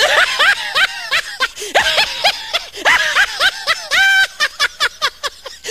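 Loud, hearty laughter in quick repeated bursts.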